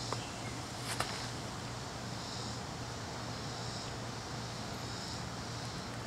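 Steady outdoor background noise with a constant low hum and a faint high hiss that swells and fades every second or so. Two small clicks come in the first second.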